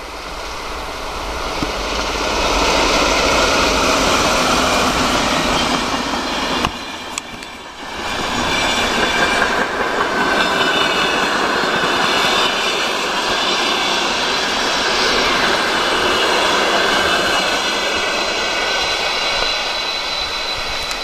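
Passenger train of grey-and-red Russian sleeping coaches rolling past at speed: a steady rush of wheels on rail that swells in the first couple of seconds, with a brief drop about seven seconds in. Faint high ringing from the wheels sits over the rush in the second half.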